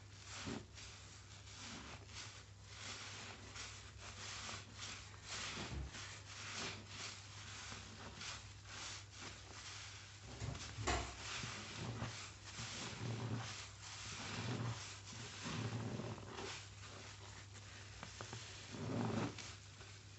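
A soaked sponge squeezed and kneaded by rubber-gloved hands in a tub of thick soap foam: wet, foamy squelching and crackling suds in irregular squeezes, the loudest about eleven seconds in and again near the end.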